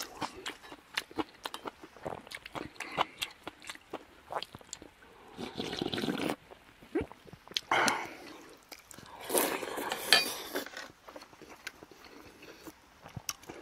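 Close-up mouth sounds of eating: chewing with small wet clicks and smacks, then gukbap broth slurped from a metal bowl in three long sips, about six, eight and ten seconds in.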